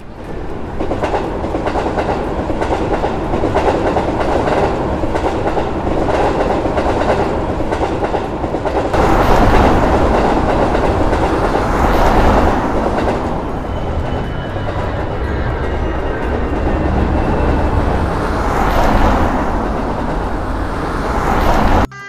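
A train running past, a steady rumble with wheels clattering over the rails. It swells louder twice and cuts off abruptly at the very end.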